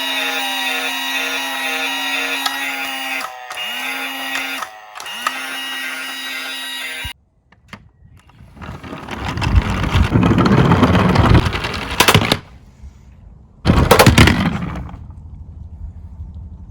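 Electronic toy police siren wailing in repeated falling glides over a steady hum, dropping out twice briefly and then cutting off about seven seconds in. After a moment of silence comes a loud rolling rumble for about three seconds, like a toy car's wheels running down a track, then sharp clacks and a second loud burst near the end.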